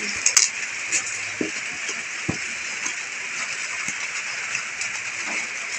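Clear plastic book-cover film crinkling and rustling as it is pressed and smoothed onto a notebook, with a few sharp crackles near the start, over a steady high hiss.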